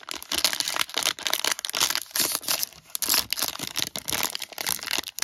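Foil-lined plastic wrapper of a trading-card hanger pack being torn open and crinkled by hand: a dense run of irregular crackling.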